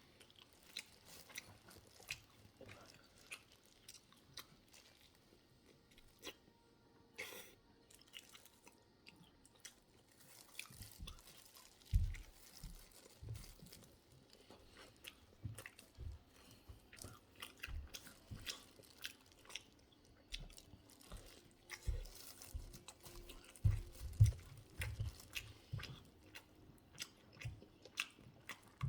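Close-miked chewing of a cilantro burger: crunching and wet mouth clicks, with occasional low thumps that are loudest about twelve seconds in and again toward the end.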